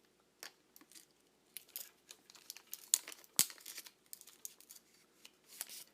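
Scattered small clicks and rustles of plastic and metal parts being handled as a retractable arm is pushed into a swivel-pole pivot and its plastic tightener pulled, with one sharper click about three and a half seconds in.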